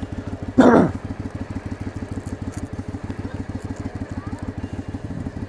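Motorcycle engine idling close by with a fast, even low pulsing. About half a second in comes a short, loud burst of noise.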